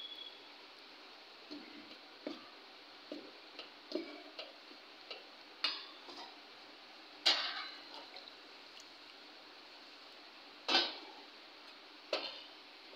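Metal spoon stirring melted jaggery into flour in a steel bowl, with scattered clinks and scrapes of the spoon against the bowl. Two louder knocks come about seven and eleven seconds in.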